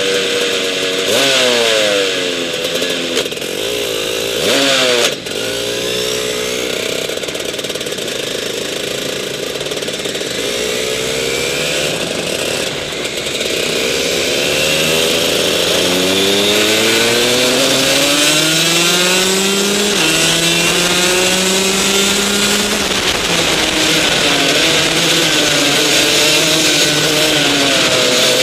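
Rotax DD2 kart's 125 cc two-stroke engine racing, heard from on board. The engine note drops and picks up several times in the first five seconds, then climbs in long rising sweeps through the middle and holds at high revs near the end.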